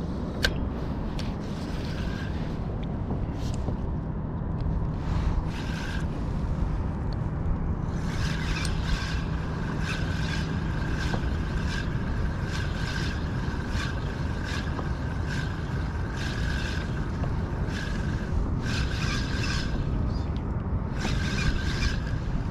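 A spinning fishing reel being cranked in short, regular bursts of whirring, about one a second. Under it runs a steady rush of wind and water.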